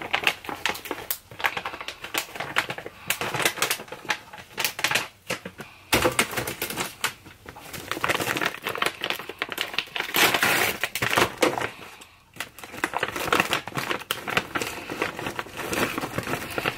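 Plastic bag of fruit crinkling and rustling as it is handled over a plastic blender cup, with many quick, irregular clicks and taps, and brief lulls twice.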